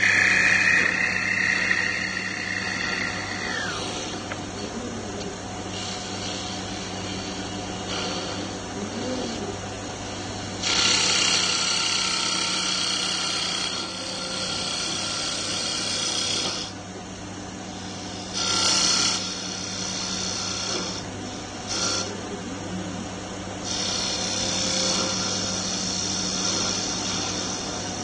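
STL0410 CNC wood lathe turning wooden beads: a steady motor hum under repeated spells of cutting noise, each a second to several seconds long, as the tool works the spinning wood blank. At the start a high whine falls slightly in pitch and stops about three seconds in.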